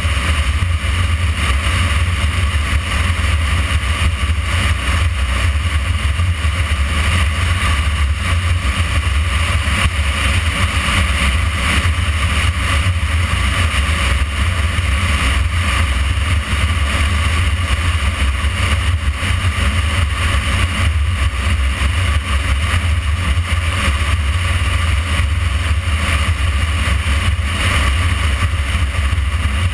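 A motorcycle riding steadily along a road at speed: a constant low rumble with road noise, with no sharp changes.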